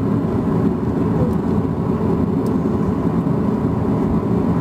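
Steady low cabin rumble of a Boeing 737-800 taxiing: its CFM56 engines running at idle thrust and the wheels rolling on the taxiway, heard from inside the cabin over the wing.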